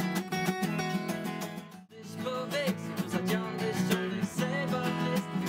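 Steel-string acoustic guitar strummed and picked, breaking off briefly about two seconds in. A man's singing voice then comes in over the guitar.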